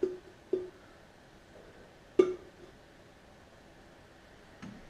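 A few light metallic taps and clinks as parts are handled against the engine block and mount area: two near the start, a sharper clink about two seconds in, and a faint one near the end.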